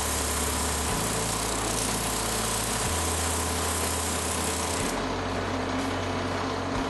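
Drill press spinning a drum sander, grinding against the edge of a metal block pressed to it by hand. The high hiss of the sanding drops out about five seconds in as the block comes away, while the motor keeps running.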